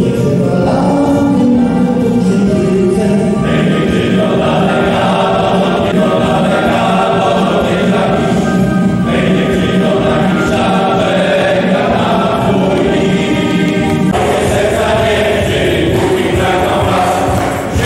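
Men's choir singing long sustained chords that change every few seconds, with a lead voice on a microphone.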